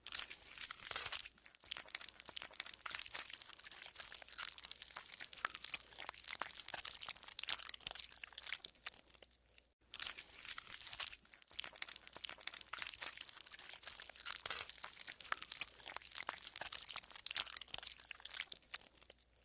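Green slime being squeezed and kneaded by hand, squelching and creaking as a dense crackle of small pops, with a few brief pauses.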